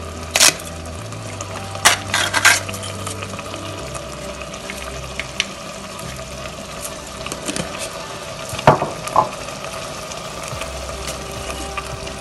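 Minced-meat and tomato sauce simmering with a steady sizzle in a stainless steel pot, broken by a few sharp clicks and knocks from the plastic herb jar and wooden spoon being handled at the pot: one about half a second in, a cluster around two seconds, and the two loudest about two-thirds of the way through.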